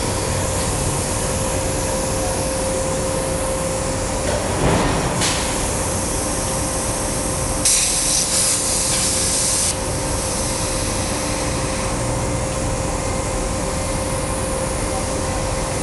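ESAB CNC plasma cutter's torch firing through 1/4-inch mild steel for about two seconds near the middle, a loud, high hiss that starts and cuts off sharply. Under it runs a steady machine hum with one constant tone, and a short burst of noise comes about five seconds in.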